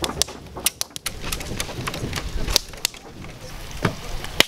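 Wood campfire crackling, with sharp, irregular pops over a faint hiss; the loudest pop comes near the end.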